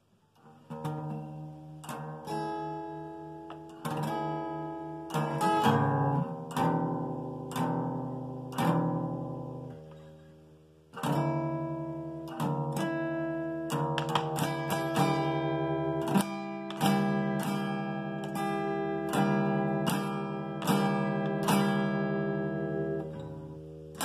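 Acoustic guitar strummed in chords, stroke after stroke. About nine seconds in, a chord is left ringing and fades out; the strumming starts again about two seconds later.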